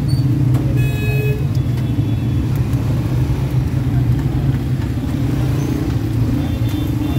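Steady low rumble of a motor or street traffic, with a brief ringing tone about a second in.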